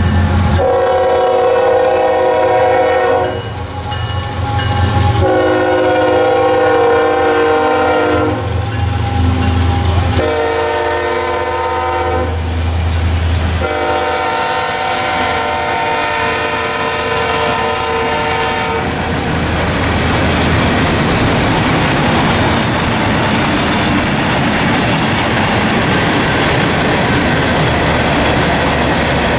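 Diesel freight locomotive horn blowing four blasts over a low engine rumble, the last blast held about five seconds, as the train approaches. The horn then stops and the train rolls past, its wheels clacking over the rail joints.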